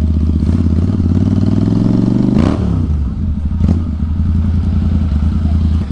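Royal Enfield Interceptor 650 parallel twin, bored out to 865 cc, running loud through an Atom full-system exhaust as the bike rolls at low speed. The engine note rises slowly, then drops sharply about two and a half seconds in, with a sharp crack at that moment and another about a second later.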